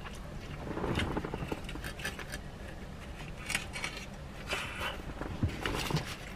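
Close chewing and mouth sounds of a man eating a steak burrito, with irregular wet clicks and an occasional crinkle of the aluminium foil wrapper.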